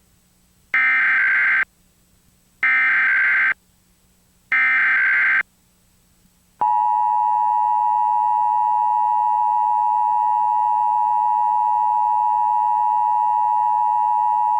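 Emergency Alert System opening for a Required Monthly Test: three bursts of SAME digital header data, each just under a second long, then the steady EAS two-tone attention signal (853 and 960 Hz) for about eight seconds, which cuts off abruptly.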